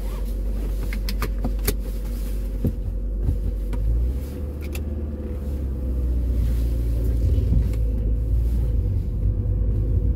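Honda Prelude's petrol engine and road noise heard from inside the cabin while driving. A few sharp clicks sound in the first couple of seconds, and the low engine rumble dips about four seconds in, then picks up again.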